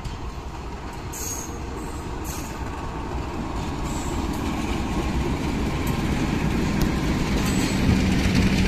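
Diesel locomotive hauling a passenger train past at close range: the engine and wheels grow steadily louder as it approaches, then the coaches rumble by on the rails.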